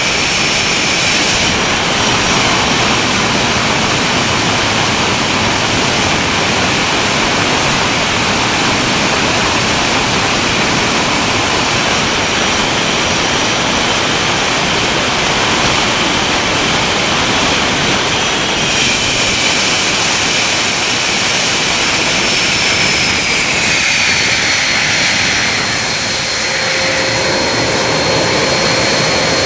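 Handmade kerosene-fuelled turbojet engine with a new 8+8-blade compressor wheel running steadily: a loud rushing roar with a high turbine whine. About three-quarters of the way through, the whine drops a step in pitch.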